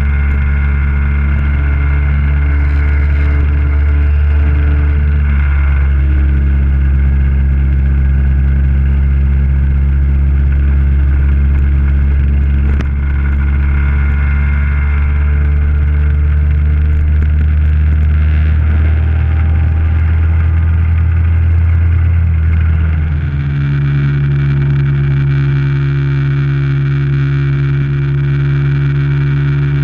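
Scooter engine running steadily at cruising speed on the open road, heard from the riding scooter itself, with a low rumble of wind under it. About 23 seconds in, the engine settles to a different steady pitch and the low rumble drops away.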